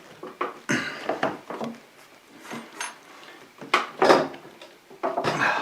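Metal clunks, knocks and creaking strain in three bunches as a stubborn tapered key is forced out of a motor pulley by hand, without a press.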